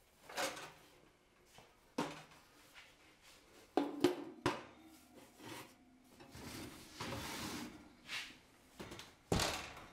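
Knocks and clatters of a dark metal roasting pan being set upside down over a sourdough loaf on a baking stone inside an oven, with a short scrape as it is settled in place. A louder thud comes near the end.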